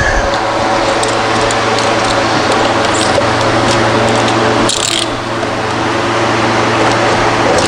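Steady machine hum with a constant rushing noise, dipping briefly about five seconds in, with a few faint clicks.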